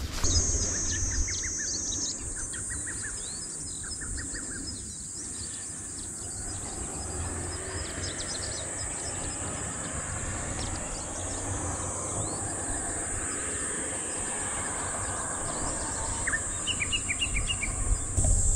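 A steady high-pitched insect chorus, with short bird chirps coming and going, over a low steady rumble.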